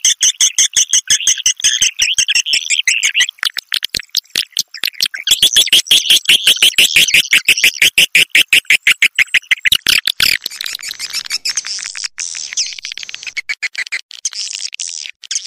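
Swiftlet lure call: a loud, rapid train of chirping clicks, several a second. About ten seconds in it gives way to a fainter, higher twittering.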